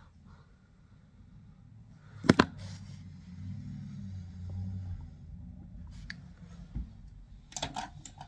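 Close handling noise: a sharp click about two seconds in, then a low rumble of handling for a couple of seconds, with a few faint taps and a soft thump near the end.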